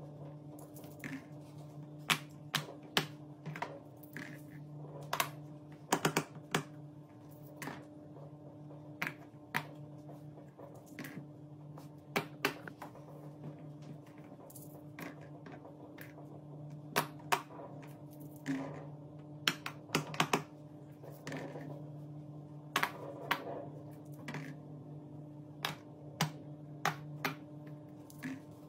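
Silicone pop-it bubbles being pressed and popped by a finger: short, sharp pops at an irregular pace, sometimes one at a time and sometimes two or three in quick succession.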